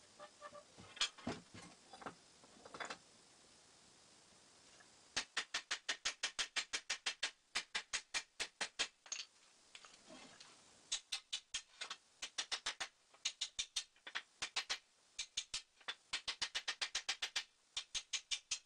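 Hammer beating on a rusted Model T spring shackle to free a seized part, steel on steel. A few scattered knocks at first, then rapid, evenly spaced strikes, about five a second, in long runs with short pauses.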